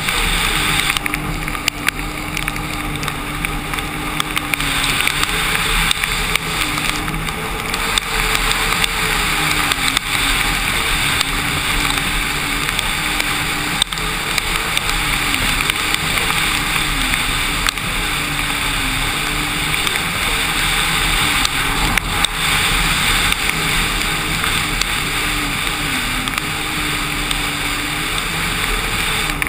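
Sea-Doo RXT-X 260 RS personal watercraft's supercharged Rotax three-cylinder engine running at speed across choppy water. Its pitch holds steady, with brief dips every few seconds, under a steady rush of wind and spray.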